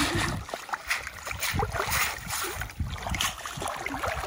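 Water splashing and sloshing around a person wading waist-deep, in irregular splashes.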